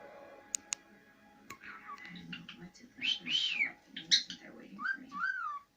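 Cockatiel whistling and chattering: a run of quick chirps from about two seconds in, a long whistle that rises and falls, then two short whistled notes that rise and fall near the end.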